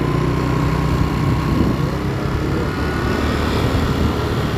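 A motor vehicle engine running steadily with a low drone and a faint high whine that steps up in pitch about two seconds in.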